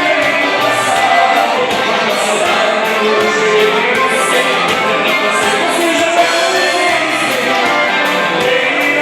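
Dance music with singing over a steady, regular beat.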